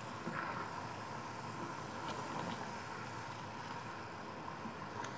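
Sugar syrup boiling hard in a steel saucepan, a steady bubbling hiss, with a few faint ticks now and then. The syrup is caramel-coloured and thickening, close to ready.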